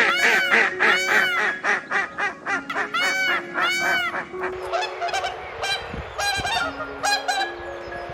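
A bird giving loud, repeated calls, each rising then falling in pitch, several a second at first and more spaced out after about four seconds.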